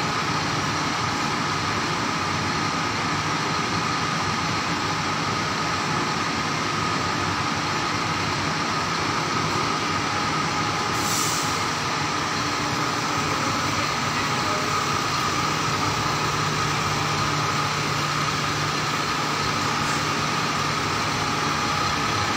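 UD Trucks Quester CWE280 concrete mixer truck standing with its diesel engine idling: a steady mechanical running noise with a constant whine. A short hiss comes about 11 seconds in.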